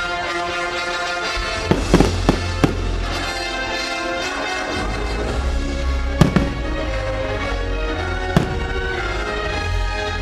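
Fireworks bursting with sharp bangs, a quick cluster about two seconds in and single ones later, over show music playing continuously on loudspeakers.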